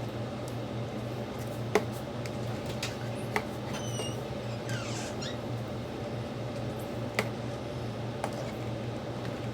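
Steady low hum with a few sharp small clicks, and a short high squeak about four seconds in.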